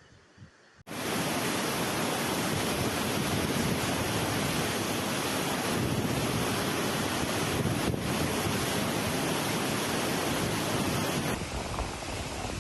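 Loud, steady rushing noise of the storm, with water and wind, starting suddenly about a second in and easing slightly near the end.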